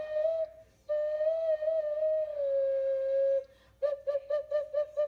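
Handmade fired-clay ceramic whistle (ocarina) blown. It holds one steady, slightly wavering note, breaks briefly about half a second in, dips a little lower in pitch, then stops. Near the end it gives a quick run of about seven short toots.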